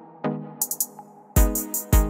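Electronic background music: repeated synth notes with hi-hat ticks, and about a second and a half in a deep bass and kick drum come in.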